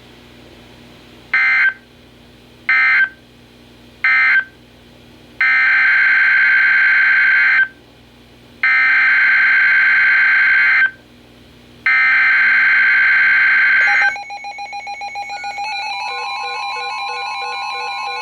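Weather-radio SAME digital data bursts: three short end-of-message bursts, then three longer header bursts announcing a new Winter Storm Warning. About fourteen seconds in, several weather radios start sounding their alert alarms together, a mix of steady tones and repeating electronic beeps.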